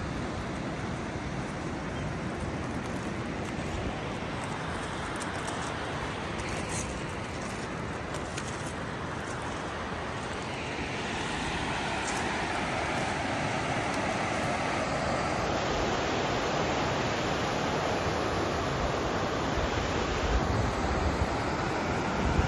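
Steady rushing of the Tuolumne River's whitewater rapids, growing louder about ten seconds in. Wind buffets the microphone near the end.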